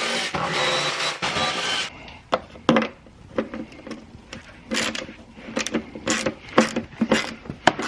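Music plays for about the first two seconds and cuts off suddenly. Then come irregular sharp metallic clicks and scrapes, about two a second, of a wrench working a bolt out of a car's plastic underbody cover.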